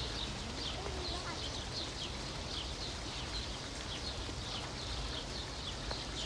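Small birds chirping over and over, short high chirps several times a second, over a low steady outdoor rumble.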